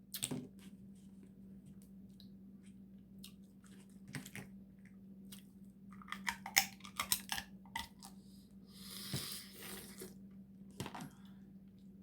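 Dungeness crab being eaten close to the microphone: scattered clicks and cracks of the shell being broken and picked apart, with chewing, busiest about six to eight seconds in.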